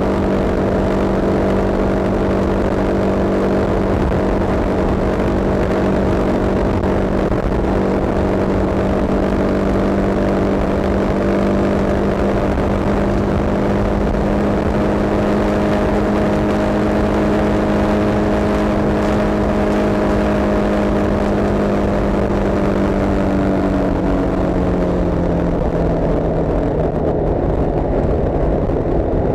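Vehicle engine running steadily at cruising speed over low road rumble, its pitch falling gradually about 24 seconds in as it slows.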